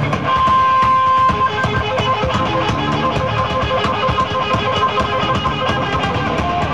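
Live blues band playing loudly, with drums and electric guitar. A lead note is held for about a second near the start, then short notes repeat in a steady rhythm.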